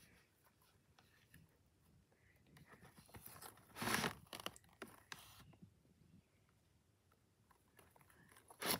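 Toys being rummaged through in a plastic bin of stress balls and fidget toys: soft scraping and rustling of rubber and plastic, with a louder scrape about four seconds in and a short sharp one near the end.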